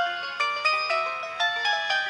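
Sony Ericsson K200i mobile phone ringtone playing: a synthesized melody of short notes, each struck and fading, about four a second.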